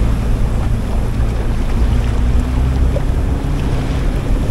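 Sightseeing boat's engine running at cruising speed as a steady low drone, with wind buffeting the microphone and water rushing past the hull.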